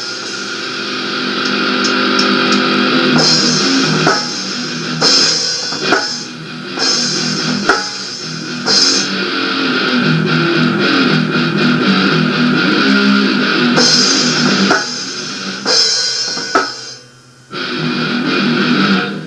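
Rock band playing on a demo recording: guitar over drum kit and cymbals, with a brief break about three-quarters of the way through before the band comes back in.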